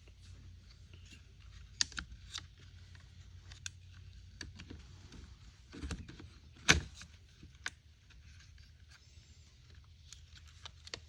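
Small plastic and metal parts of a chainsaw's top handle (trigger, spring and housing) being handled and fitted together: scattered light clicks and taps, with one louder knock about two-thirds of the way through.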